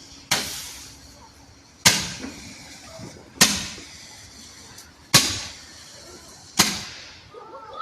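A firework, such as a roman candle or cake, firing five shots about a second and a half apart, each a sharp pop trailing off in a hiss.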